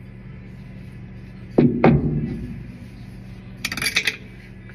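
Two sharp metallic knocks about a quarter second apart, then about two seconds later a brief rattle of bright metal clinks: metal parts and tools being handled at the washer's drive.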